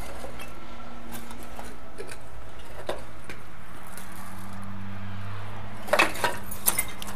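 Steady background noise with scattered light clicks. About six seconds in come a few sharp clinks and scrapes of footsteps on broken tile and rubble.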